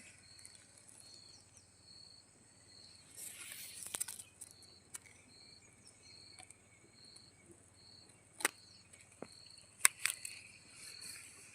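High-pitched insect chirping in an even rhythm of about two pulses a second over a faint steady insect hiss. A brief rustle comes about three seconds in, and two sharp clicks near the end.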